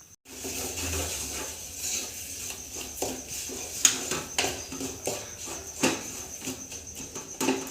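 A spoon stirring and scraping jaggery as it melts in a pan on the stove: a series of scrapes and light clinks over a steady low hum.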